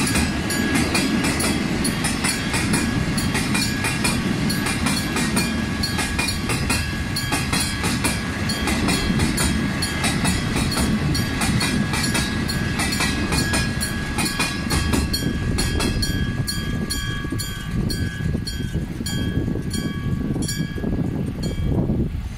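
Freight train wagons rolling over a level crossing, the wheels clacking over rail joints in a steady fast rhythm over a low rumble. A level-crossing alarm bell rings throughout, and its repeating ding stands out more in the last few seconds as the train noise thins.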